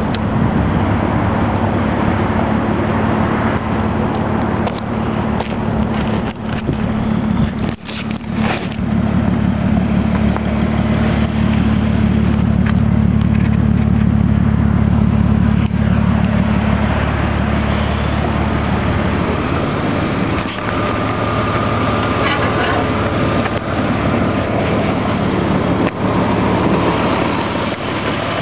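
BMW E34's engine idling steadily through aftermarket Raceland headers, heard from the exhaust tailpipes, with a brief dip about eight seconds in.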